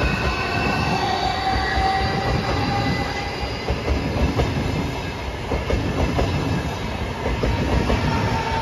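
A Lastochka (Siemens Desiro RUS) electric multiple unit passing close by: a steady loud rumble of wheels on rails with irregular clattering, and a few high whining tones over it that sink slightly in pitch during the first seconds.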